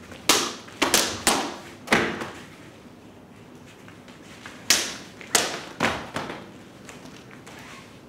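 Katana cutting through rolled tatami-mat targets (tameshigiri): two quick series of four sharp thwacks, each dying away quickly, about half a second apart.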